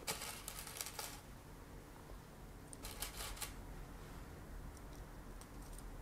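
Faint small clicks and scratches of LED leads being pushed through Cherry MX switch housings into a keyboard PCB, in two short clusters: in the first second and again around three seconds in.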